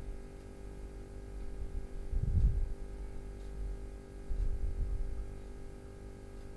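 Steady electrical hum, with soft low rumbling thuds about two seconds in and again about four seconds in as a spatula stirs thick, simmering sheer khurma in a pan.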